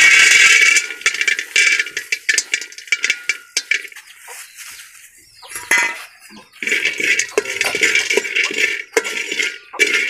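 Peanuts poured into an aluminium pot, a loud clattering rattle in the first second, then scattered clicks. From about six and a half seconds in, a metal spoon stirs the peanuts around the pot with a steady scraping rattle.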